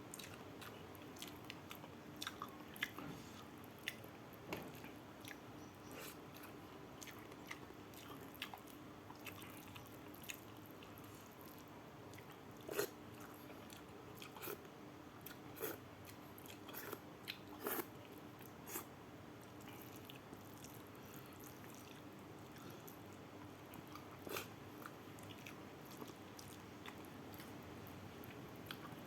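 Close-up eating of rice with sambal: quiet chewing and wet mouth sounds with scattered short smacks and clicks, the sharpest about 13 and 18 seconds in, over a faint steady hum.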